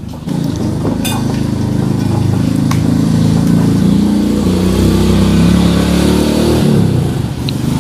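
A motor vehicle's engine running close by, growing louder over the first few seconds and then holding steady.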